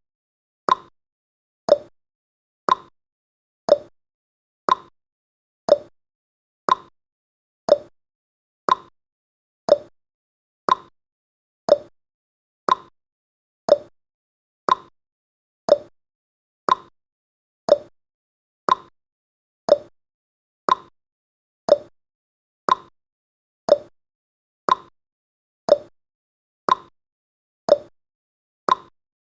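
Countdown timer's ticking sound effect: a sharp tick once a second, alternating slightly higher and lower like a clock's tick-tock, with silence between ticks.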